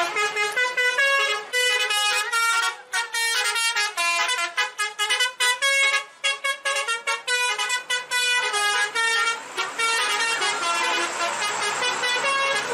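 Bus telolet horn playing a quick melody: short pitched horn notes stepping up and down several times a second, with a few brief breaks. Near the end the notes run together into a denser, continuous blare.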